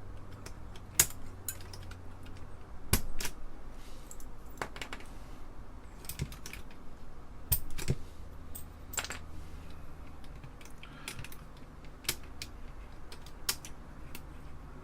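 Plastic keycaps being pried off an Apple II Plus keyboard with a keycap puller: sharp clicks and snaps at irregular intervals, sometimes in quick pairs, as caps release from their plungers.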